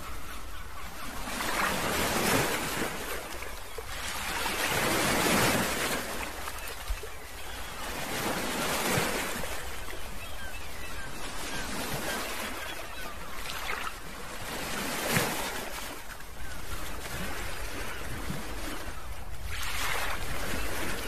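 Ocean waves washing, a rush of surf that swells and fades every few seconds.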